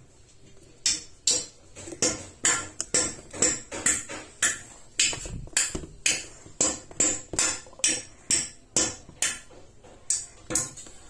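A quick, slightly uneven run of sharp percussive taps, about two to three a second, starting about a second in and stopping just before the end.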